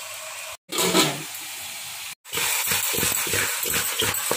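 Fish pieces and fried onion masala sizzling in hot oil in an aluminium pot, a steady hiss that drops out twice for an instant, with a run of uneven low knocks in the last two seconds.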